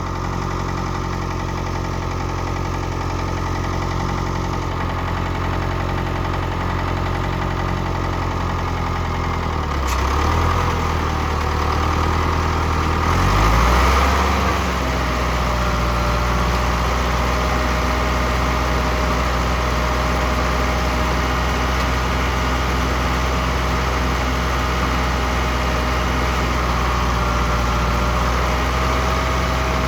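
Ford 6610 tractor's four-cylinder diesel engine running steadily under load while driving a John Deere 450E round baler. The engine note dips and recovers about ten seconds in and again a few seconds later, and a thin steady whine joins the engine after that.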